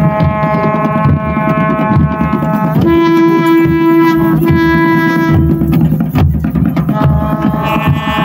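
A traditional pahari deity-procession band playing: wind horns hold long notes that change pitch about every three seconds, over steady drumming.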